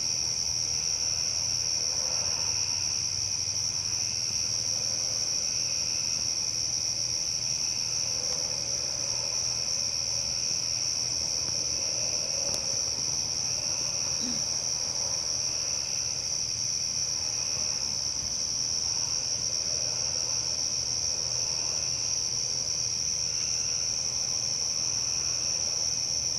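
Night insect chorus: a steady, unbroken high-pitched trill, with a lower insect call pulsing about once a second beneath it.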